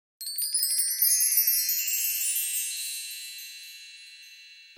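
A shimmering run of high chimes struck in quick succession over the first second or so, then ringing on and slowly fading away. It is an added chime sound effect, not kitchen sound.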